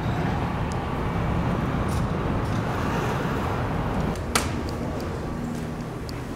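City street traffic noise, a steady rumbling hum of passing vehicles, with one sharp click about four seconds in.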